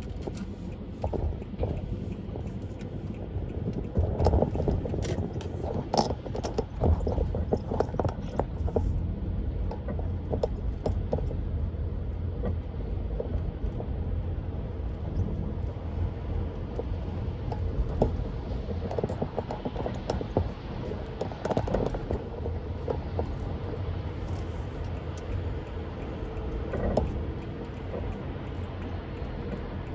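Car driving on a highway, a steady low road and tyre rumble with frequent short knocks and rattles.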